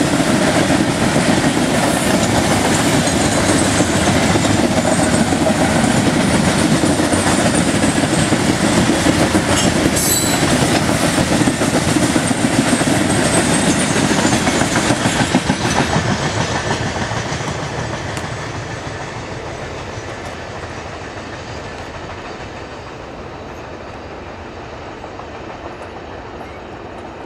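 Wheels of a coal train's gondola cars clattering steadily over the rails. The sound fades away through the second half as the end of the train rolls past.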